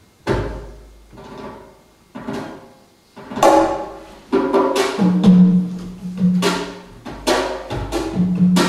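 Live percussion-led music: a few sharp drum strikes about a second apart, building from about three seconds in into a louder, busier rhythm, with a low held instrument note joining about halfway through.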